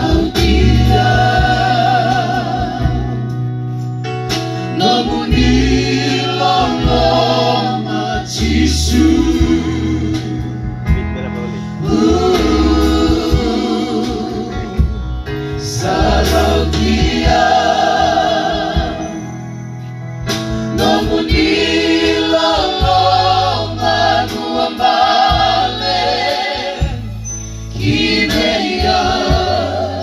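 A small mixed group of men and women singing a song together into microphones, amplified through PA speakers, over keyboard accompaniment with steady bass notes. The singing comes in phrases of a few seconds with short breaks between them.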